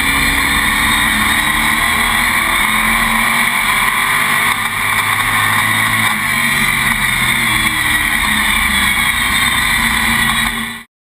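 Racing stock car's engine run hard on the oval, heard from inside the cockpit: a loud, steady drone whose pitch dips slightly and climbs again through a turn. The sound cuts off suddenly near the end.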